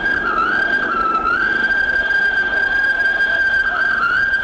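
Steam tram locomotive's whistle blowing continuously, a single high note whose pitch sags briefly near the start and again near the end.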